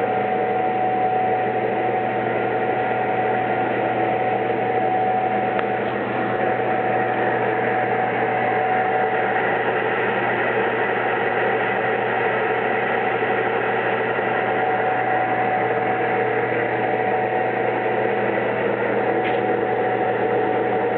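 Morton engine lathe running under power, its spindle and gearing giving a steady hum with a constant whine over it.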